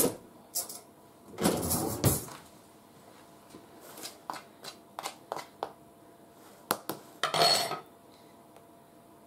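Metal spoon clattering and scraping in a tray of seasoned flour as the flour is spooned over a piece of steak: two short clatters early on, a run of light clicks and taps in the middle, and another brief clatter near the end.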